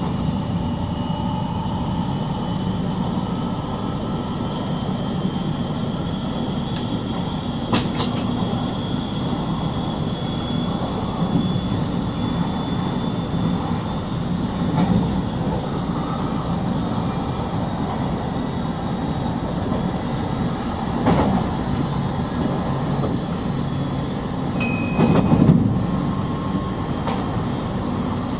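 Steady running noise of an NS stopping train heard from inside the driver's cab, a continuous low rumble. A few sharp clicks come through, about eight seconds in and twice more near the end, and a brief high tone sounds near the end.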